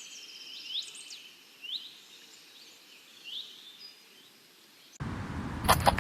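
A bird chirping: short sweeping notes, roughly one a second, over a faint steady outdoor hiss. About five seconds in it cuts off suddenly to a much louder, different noise.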